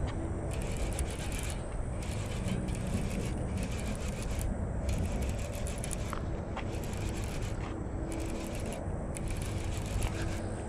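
Wind buffeting a chest-mounted action camera's microphone as a steady low rumble, with irregular rubbing and scraping close to the mic.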